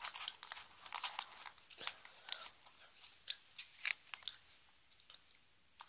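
Foil wrapper of a Ritter Sport chocolate bar crinkling as it is handled and folded, in quick irregular crackles that thin out and stop near the end.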